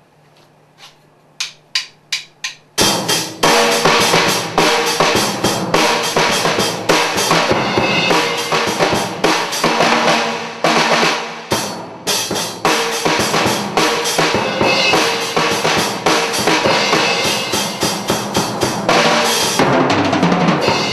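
Fender Starcaster drum kit: a few sharp stick clicks count in, then a loud rock beat with a band's music kicks in, with a brief break about halfway through.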